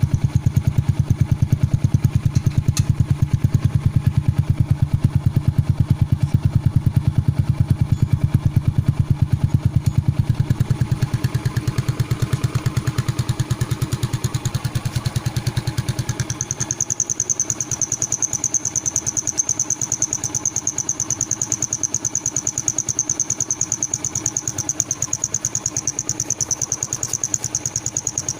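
Yamaha Mio Sporty scooter's single-cylinder engine idling through a loud open exhaust fitted with a turbo-whistle insert, with rapid even exhaust pulses. A bit past halfway a steady high whistle sets in and holds to the end, while the low exhaust note thins.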